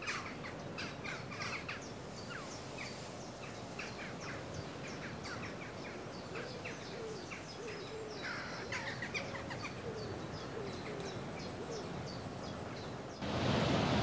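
Several songbirds chirping and singing, with a lower repeated call joining in through the middle. Near the end the sound cuts to a louder, steady rush of surf and wind.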